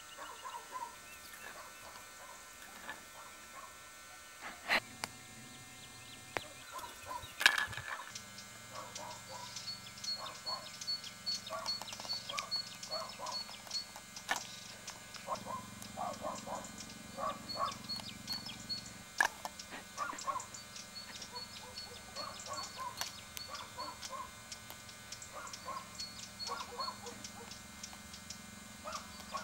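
Outdoor birdsong: many short chirps and calls, with a steady run of high peeps repeating several times a second through much of it. A couple of sharp knocks come in the first eight seconds, and a low hum sets in after that.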